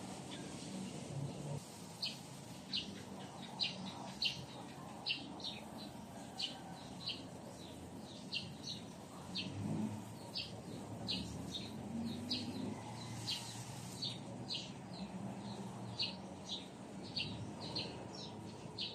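A bird chirping over and over, short sharp chirps at about one or two a second, starting about two seconds in.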